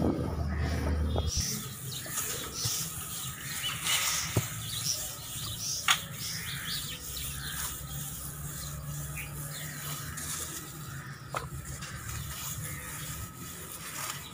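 Wooden rolling pin rolling out a stiff disc of dough on a wooden board: soft rubbing and rolling with a few light knocks.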